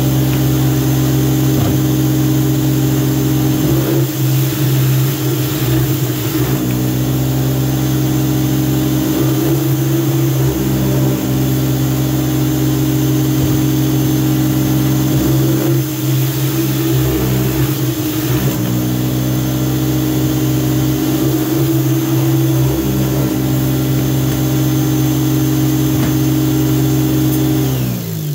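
Greenworks 2000 psi electric pressure washer running steadily, feeding its surface cleaner as it sprays the plastic growing trays pushed through underneath. Its hum dips slightly now and then. Near the end it is switched off and winds down, its pitch falling.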